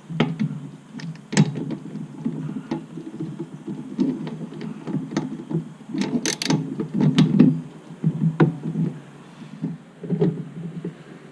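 Irregular clicks, clinks and knocks of a 3/8-inch torque wrench being worked onto a motorcycle muffler bracket bolt, with rubbing and scraping close by. The sharpest cluster of clicks comes about six seconds in.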